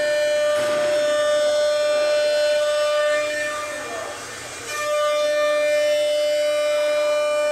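CNC router spindle running with a steady high whine of several stacked tones while routing a door panel pattern into a wooden board. Near the middle the whine fades for over a second with a short falling tone, then comes back abruptly.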